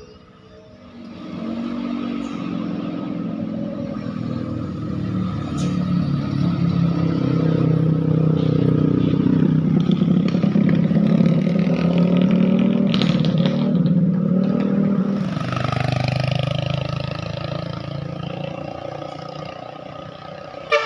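A heavy road vehicle's engine passing close by: it grows louder over about ten seconds, then fades away.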